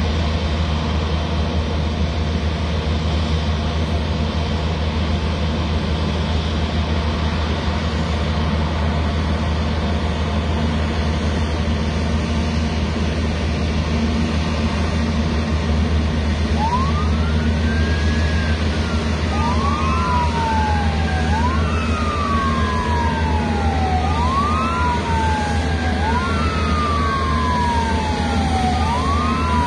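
Steady low rumble of a taxiing Airbus A350-1000's jet engines. A little over halfway through, airport fire trucks' sirens start wailing, rising and falling about every two and a half seconds, with two sirens out of step with each other.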